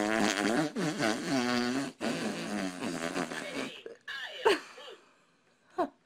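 A baby's long, buzzing fart with a couple of short breaks, then two short squeaky ones near the end.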